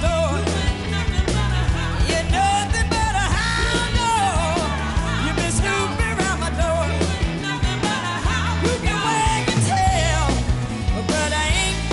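Live blues band with a woman singing the lead vocal, over a walking bass line and drums.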